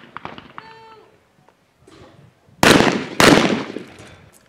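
Two shotgun shots about half a second apart, a skeet double in which both clay targets are broken, each shot trailing off in a fading echo.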